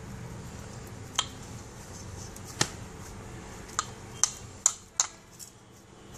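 Hand pressing and spreading rice-flour dough thin inside a steel bowl, with six sharp clicks that come closer together toward the end.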